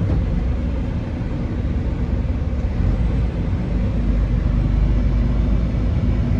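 Semi-truck's diesel engine idling: a steady low rumble with a faint hum, unchanging throughout.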